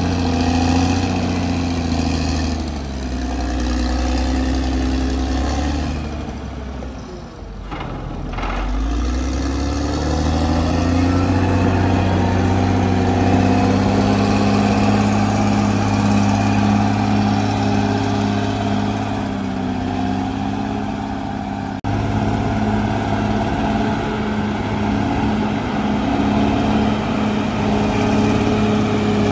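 CAT D6R XL bulldozer's diesel engine running steadily. About seven seconds in, its pitch and loudness fall away sharply, then climb back up. There is an abrupt break about two-thirds of the way through.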